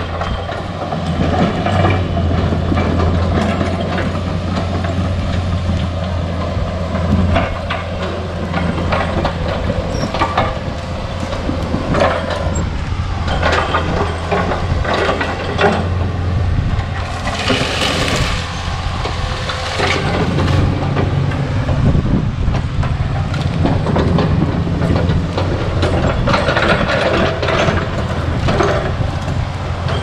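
PC40 mini excavator's diesel engine running steadily while it works, with repeated clanks, cracks and scrapes from the bucket and debris. A rushing hiss lasts a couple of seconds just past the middle.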